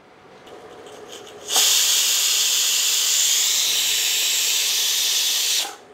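Bergner stainless-steel pressure cooker's valve releasing steam: a faint hiss builds, then a loud steady hiss starts suddenly and runs for about four seconds before cutting off sharply. This is the cooker's first whistle, the sign that it has come up to full pressure.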